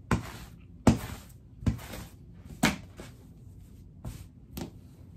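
Sticky lint roller rolled in short strokes over fabric, about one stroke a second, each starting sharply and fading quickly, the last two weaker.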